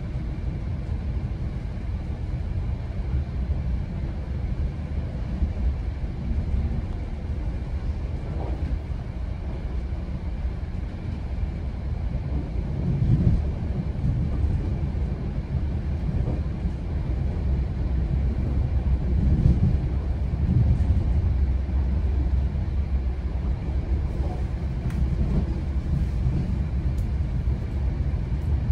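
GO Transit commuter train rolling along the track: a steady low rumble of wheels and car body that swells a few times around the middle.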